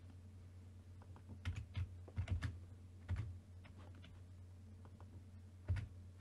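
Computer keyboard keys tapped in a few short, irregular runs, about a second and a half in and again near the end, over a faint low steady hum.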